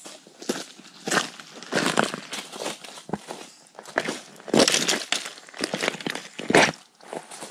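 Footsteps of a person in hiking boots walking over dry leaf litter and stones in a shallow stream bed, a crunching step about every second, with one of the last steps passing close by.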